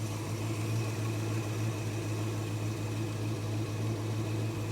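Holden HK engine running steadily at a raised idle, with no lifter tick to be heard.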